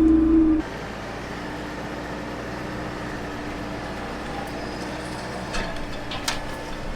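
Compact tractor engine running hard with a loud droning tone, which drops suddenly about half a second in to a quieter steady running sound. A few sharp knocks and clanks come near the end.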